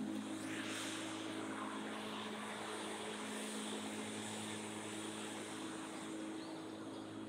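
Walk-behind lawn mower running with a steady motor hum while it cuts grass, easing off slightly as it moves away.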